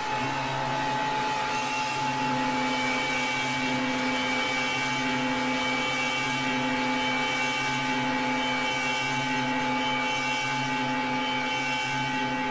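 Eerie horror drone: several sustained tones held steady under a loud rushing hiss.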